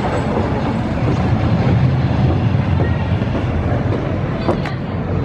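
Arrow Dynamics mine train roller coaster train rolling along its track, a steady low rumble that swells a little in the middle, with two sharp clicks near the end.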